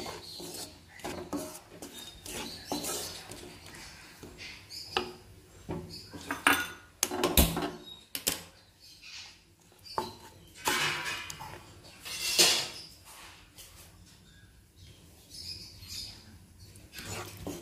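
Wooden spatula stirring and scraping thick pickle gravy around a nonstick pan, with irregular knocks and scrapes against the pan, a few louder strokes about seven, eleven and twelve seconds in.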